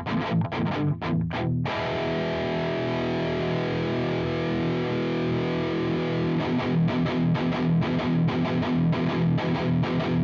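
Electric guitar through a JOYO Dark Flame distortion pedal, a high-gain clone of the Revv G3. Short choppy stabs give way, under two seconds in, to a chord left ringing for several seconds, then rhythmic chugging picks up again about two-thirds of the way through.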